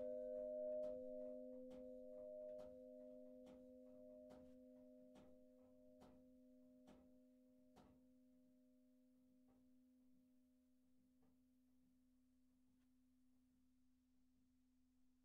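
Church bell's ring dying away after the ringing stops, its low hum and two higher tones fading slowly as the bell swings to rest. Faint soft clicks, about one a second, fade along with it.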